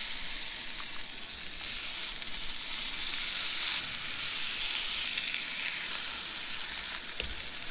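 Raw bacon sizzling as strips are laid one after another into a hot skillet on a camp stove: a steady, crackling hiss that sets in as the first strips hit the pan. A single light click sounds near the end.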